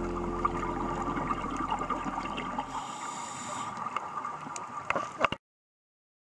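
Underwater camera sound: a crackly water hiss with scattered sharp clicks, under soft background music that fades out over the first few seconds. The sound cuts off to silence about five seconds in.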